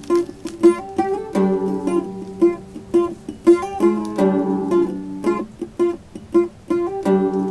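Background music on a plucked string instrument, bright strummed chords and picked notes in a pattern that repeats about every three seconds.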